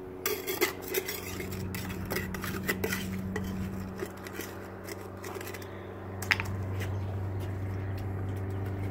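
Small metal hand tool scraping and clinking against concrete and grit inside a hole cored in a concrete slab, clearing it out, with a dense run of clicks over the first few seconds and one sharp clink later. A steady low hum runs underneath.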